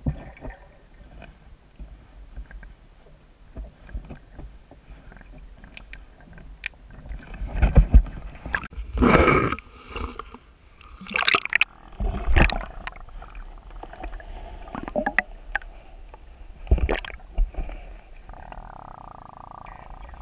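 Lake water splashing and gurgling around a GoPro mounted on a fishing landing net as it is dipped under the surface and lifted out, in irregular bursts that are loudest around the middle.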